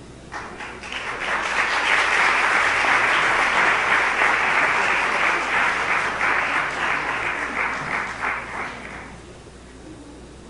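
Audience applauding: the clapping starts just after the beginning, builds within about two seconds, and fades out about nine seconds in.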